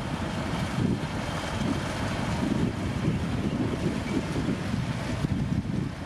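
Heavy diesel earthmoving machinery running with a steady low rumble, mixed with wind buffeting the microphone.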